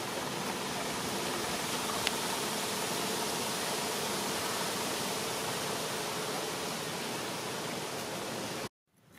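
A steady, even hiss of outdoor background noise with a faint hum in it, which cuts off suddenly near the end.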